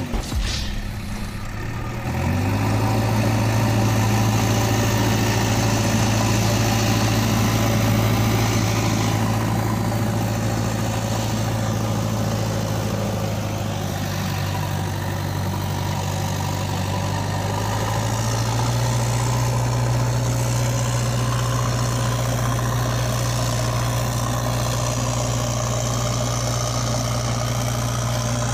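A steady, low engine-like drone, like a heavy machine idling. It glides up into a steady note about two seconds in and steps slightly higher around eighteen seconds in.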